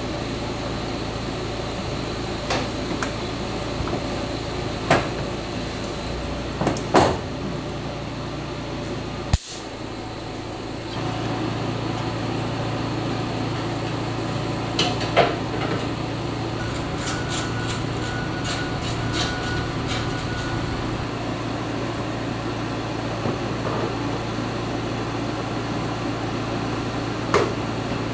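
Steady background hum with scattered sharp knocks and clicks of hand tools and body panels being handled during a body-kit fitting, including a short run of quick clicks about two-thirds of the way through.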